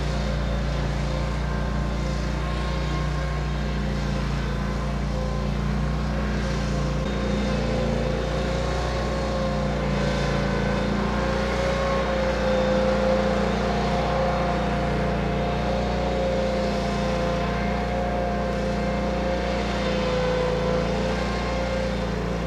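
Engine of an amphibious all-terrain vehicle running steadily as it drives through floodwater, its pitch wavering slightly.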